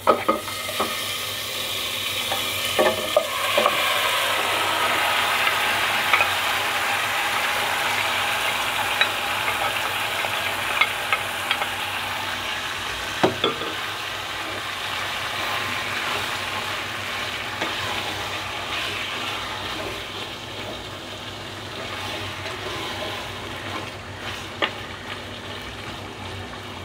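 Marinated beef sizzling in hot oil. It starts suddenly as the meat goes into the pot and eases slowly, while a wooden spoon stirs it and now and then clicks against the pot.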